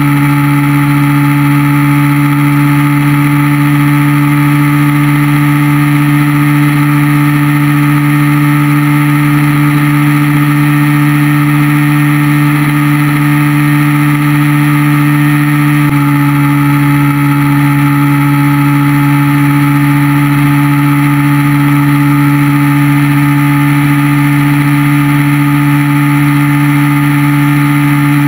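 Yamaha motorcycle engine running at a steady cruising speed, a constant drone with a slight shift in pitch a little past halfway, over a steady rush of wind and road noise.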